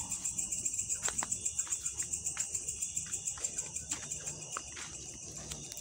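Crickets chirping: a high, pulsing trill at about seven pulses a second that fades somewhat in the second half, with a few faint ticks.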